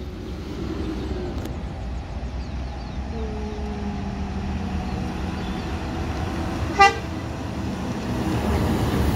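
Vehicle horn sounding over traffic: a held tone a few seconds in, then one short sharp toot about seven seconds in, while a bus engine's low running sound grows louder near the end as it draws closer.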